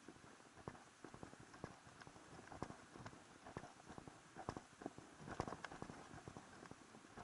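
Faint footsteps of a hiker walking on a dirt trail, with irregular light knocks and clicks several times a second.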